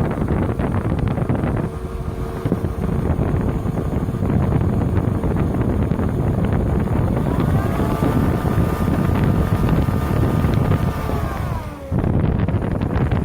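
Lexus LS400's V8 running with a high-pitched whine over a steady rush of engine and wind noise. The whine rises about halfway through, holds, then slides down and fades near the end. The owner suspects the alternator, maybe bad diodes.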